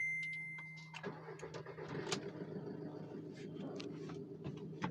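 A short electronic beep about a second long, then the Skoda Rapid's engine starts and runs steadily at idle, with a new clutch and release bearing just fitted.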